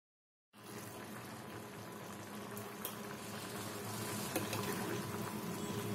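Drumstick and onion curry bubbling in an open aluminium pressure cooker while a steel spoon stirs it, with a few light clicks of the spoon on the pot. The sound starts about half a second in.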